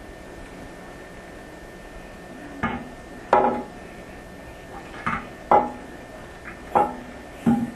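Porcelain toilet tank and bowl knocking and clinking together as the tank is set and shifted into place on the bowl: six sharp knocks with short ringing, starting about two and a half seconds in.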